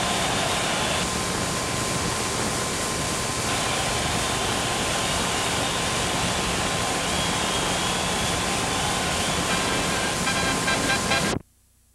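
Steady roar of an arena crowd mixed with the hiss of an old broadcast recording, with a faint steady whistle tone underneath; it cuts off abruptly a little before the end.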